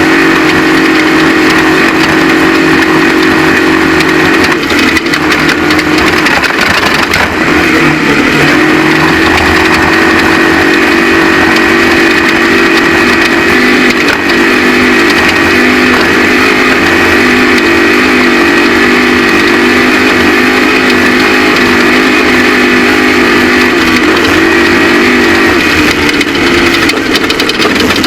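Off-road race truck engine running hard at sustained high revs, loud and steady, dipping briefly about five seconds in before holding high again.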